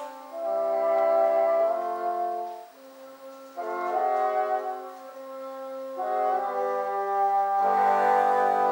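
Bassoon ensemble playing slow sustained chords in several parts, the notes changing every second or so, with a short break about three seconds in and a fuller, louder chord near the end.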